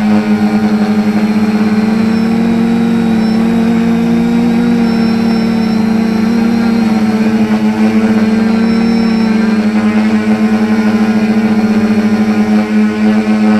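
Quadcopter motors and propellers buzzing at a steady pitch, heard close up from the drone's onboard camera, with slight shifts in pitch as the throttle changes.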